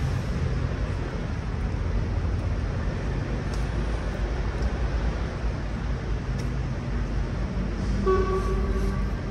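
Street traffic running steadily as a low rumble, with a short vehicle horn toot, under a second long, near the end.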